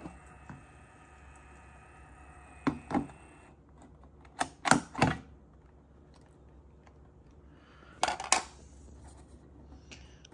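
Label maker's keypad being pressed: a few sharp clicks in twos and threes. Under them a faint steady high whine stops about three and a half seconds in.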